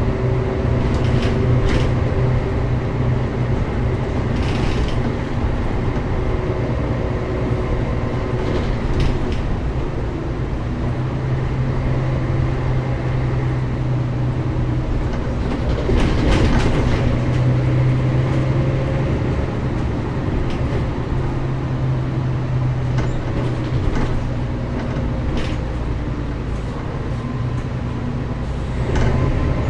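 Diesel engine of a Mercedes-Benz O405GN² articulated bus running as the bus drives, its steady drone swelling and easing several times as it pulls and lets off. Short knocks and rattles come through now and then, with a brief rush of noise about two-thirds of the way in.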